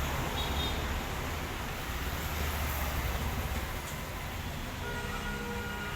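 Steady low rumble and hiss of background road traffic, with a faint steady tone coming in about five seconds in.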